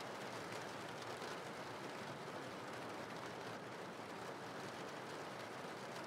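Steady rain ambience: an even, unbroken hiss of falling rain.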